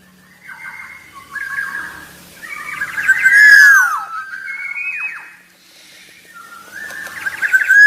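Black-naped oriole singing: a series of loud, fluty whistled phrases with sharply downward-slurred notes, separated by short pauses. The loudest phrase comes about three seconds in.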